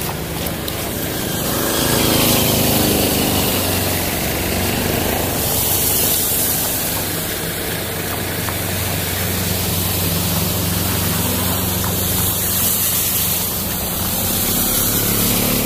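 A vehicle's engine running steadily as it drives through floodwater on a road, under a continuous hiss of water spraying and sloshing from the tyres.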